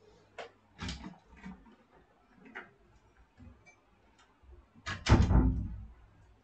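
A few scattered light clicks and knocks, then a louder knock with a low rumble about five seconds in, lasting about a second.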